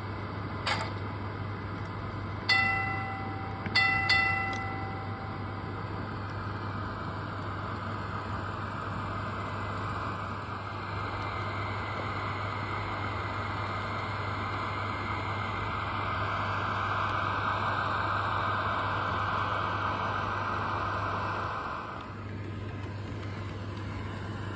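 Digital sound effects from a Bachmann HO-scale model streetcar: a click, then the tram's bell rings once and then twice more in quick succession, followed by its running sound, which swells from about ten seconds in and cuts off suddenly near the end, over a constant low hum.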